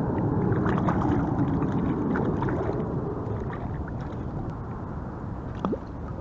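Water gurgling and splashing at the side of a fishing kayak as a hooked rockfish is brought to the surface and lifted aboard, with a short falling squeak near the end.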